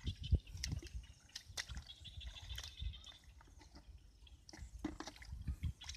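Wet squelching and splashing of bare feet and hands moving through shallow muddy water, in irregular knocks and sloshes. An insect chirps in the background in quick pulses.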